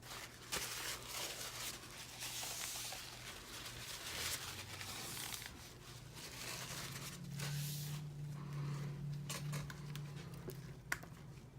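Scraping and rustling of soap-making tools against containers, a run of small scratches and ticks over a faint low hum.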